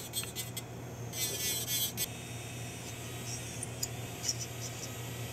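Dental lab handpiece running with a steady hum while its burr grinds the thermoplastic clasp, with a short hissy grinding burst about a second in and light ticks of the burr touching later on.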